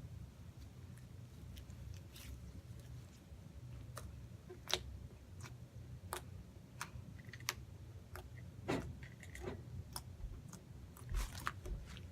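Hands squishing and stretching snow slime made with Insta-Snow, giving irregular small crackles, clicks and pops, a few sharper ones about five, nine and eleven seconds in, over a low steady hum.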